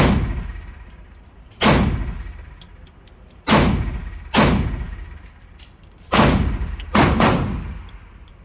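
Seven gunshots fired one at a time at an uneven pace, each followed by about a second of trailing echo, with the last two coming in quick succession.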